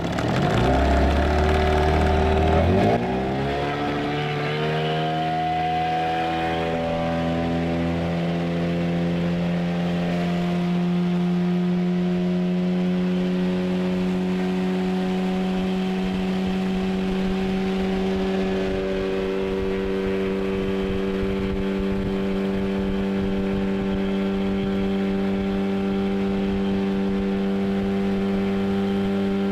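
Small Yamaha outboard motor on a small boat, speeding up over the first few seconds and then running at a steady cruising speed.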